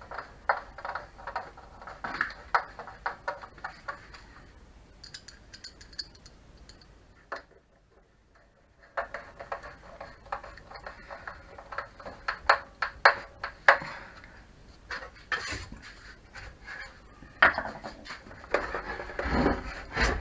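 Hands working on the plastic housing and parts of a Tacx Flux smart trainer: scattered clicks, knocks and light clatter of hard parts, with a short lull about halfway and heavier knocks near the end.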